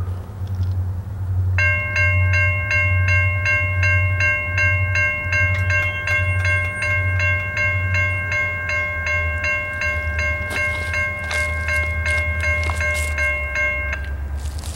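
Railroad grade-crossing bell starting about a second and a half in, ringing about three strikes a second, then stopping shortly before the end. Under it runs a steady low rumble from the approaching train's diesel locomotives.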